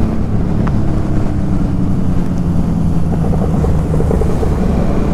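KTM Duke 390's single-cylinder engine running at a steady cruise while riding, with wind rushing over the microphone.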